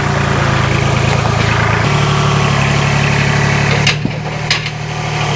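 Heavy equipment engine running steadily, its note shifting about two seconds in, with a few short knocks a little before the end.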